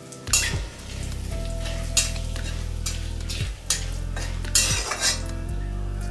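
Whole spices (cumin seeds, dried red chilli, bay leaves) sizzling in hot oil in a non-stick wok while a spatula stirs them, its strokes scraping across the pan several times, the longest one a little before the end.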